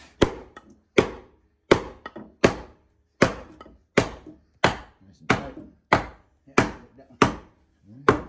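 Claw hammer striking the wooden floor framing in a steady rhythm, about a dozen blows at roughly one and a half a second.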